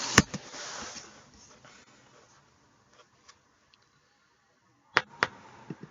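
A sharp click and a short hiss that fades within a second, then faint ticks, and two sharp clicks about five seconds in, a quarter-second apart, followed by a softer one.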